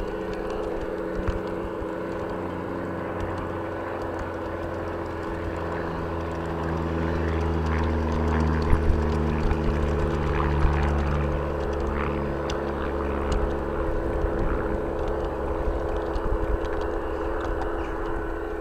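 LGB garden-scale model train running, heard from a camera riding on it: a steady electric motor hum with the wheels rumbling and clicking over the rail joints. The rumble swells through the middle and eases again near the end.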